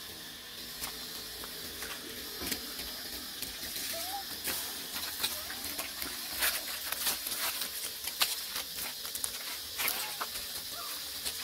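Dry fallen leaves crackling and rustling as a group of macaques moves and scrambles about in the leaf litter, with a few short rising squeaks.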